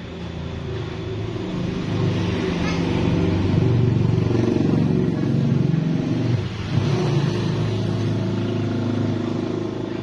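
A motor vehicle engine running, growing louder over the first few seconds and easing off near the end, its pitch shifting as it goes.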